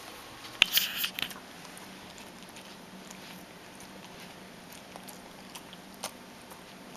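Shetland sheepdog chewing food, with a quick run of crunches about a second in, then a few faint scattered clicks.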